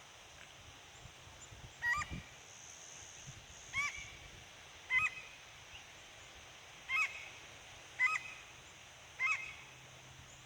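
A bird calling repeatedly: six short, sharp, hooked calls, one every second or two.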